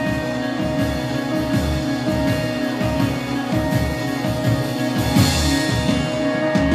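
Two-piece band playing live: guitar and a drum kit, the drums beating out a steady rhythm of low hits under the sustained guitar notes.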